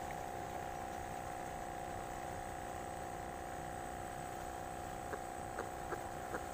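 Small battery-powered aerator pump on a live-bait bucket humming steadily, with a few faint clicks near the end.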